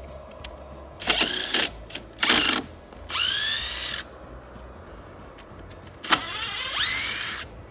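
Cordless impact driver run in four short bursts, undoing screws from a wooden concrete form board. The first two bursts are short and noisy; the last two are whines about a second long that rise in pitch as the motor spins up.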